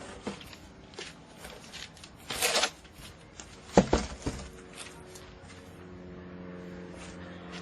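Unboxing noises: cardboard and packaging being handled, with scattered clicks and knocks, a rustling scrape about two and a half seconds in and a heavy thump just under four seconds in.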